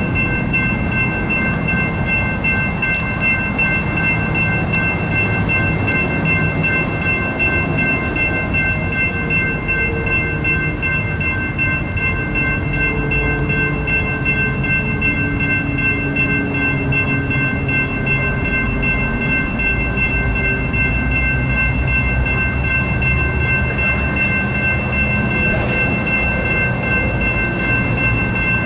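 Electronic railroad crossing bells (e-bells) ringing steadily and without a break while the crossing warning is active, over a low steady rumble.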